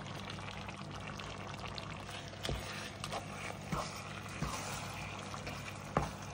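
Minced meat and onions bubbling and sizzling in hot fat in a pan while a wooden spoon stirs them, with several light knocks of the spoon against the pan.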